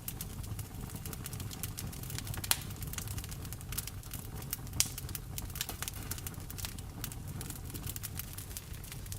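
Wood fire in a fireplace crackling, with frequent small pops and two louder snaps about two and a half and five seconds in, over a low steady rumble.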